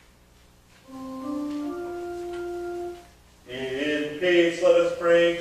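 Church organ playing: about a second in, a short phrase of steady held notes stepping upward, then after a brief pause fuller, louder chords starting about three and a half seconds in.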